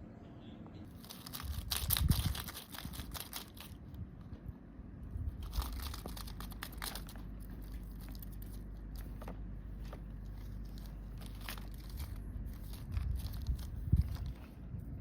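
Irregular crinkling and rustling, densest in two spells about a second and five seconds in, over a steady low rumble.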